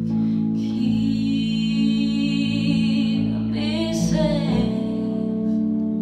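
Live R&B ballad: a woman singing over sustained keyboard chords and electric bass, with a held, wavering sung note about four seconds in.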